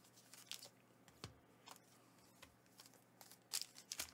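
Faint crinkles and light taps of foil Pokémon booster packs being handled and laid down on a playmat, a few short crackles spread out, the loudest about three and a half seconds in.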